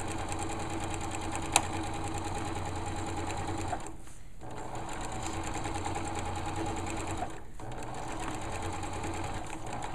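Electric sewing machine stitching a hem, running steadily with one sharp click about a second and a half in. It eases off briefly twice, about four and seven and a half seconds in.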